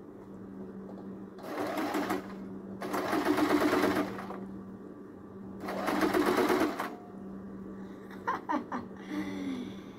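Electric sewing machine stitching fabric in three short runs of a second or so each, with pauses between as the cloth is repositioned. A steady low hum runs underneath.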